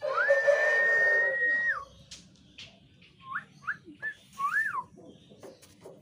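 Whistling: one loud high note that rises, is held for about a second and a half, then drops, followed a couple of seconds later by several short rising-and-falling whistles.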